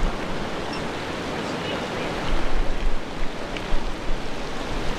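Wind buffeting the microphone over a steady rushing hiss, with gusts growing stronger about two seconds in.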